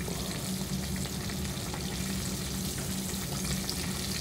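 Floured trout frying in hot olive oil in a stainless steel pan: a steady sizzle, with a low steady hum underneath.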